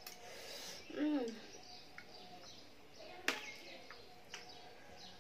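Eating sounds from a ramen mukbang: a fork and spoon clicking against the plate twice near the middle and toward the end, with a short hum from a voice about a second in.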